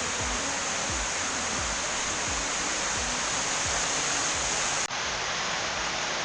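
Waterfall: a steady, loud rush of falling water. About five seconds in the sound cuts abruptly to another take of the same rush.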